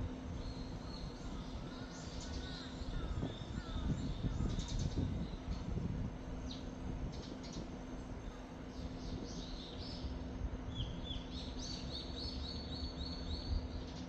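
Small birds chirping and singing in short, high notes, ending in a quick run of repeated notes, over a low rumble of wind.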